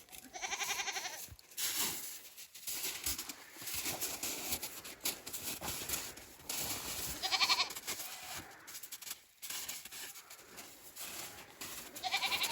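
Goats bleating three times: once near the start, once about halfway through, and once at the end, each a short wavering call. Rustling, shuffling noise runs between the calls.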